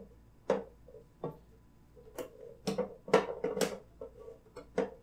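A series of sharp clicks and knocks on a plastic snake tank and its lid as a hand reaches in, with several quick knocks close together in the middle.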